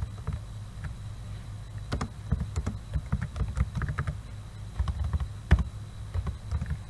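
Computer keyboard keys clicking in irregular runs of keystrokes as text is typed, with one sharper keystroke near the end, over a steady low hum.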